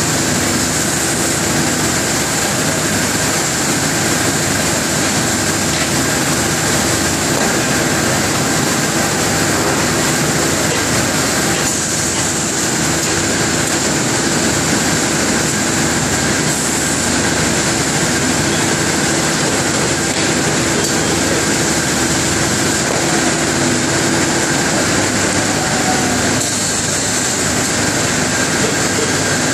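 Steady industrial roar of a glassworks floor, from glass furnaces and air blowers running, with a high steady whine on top.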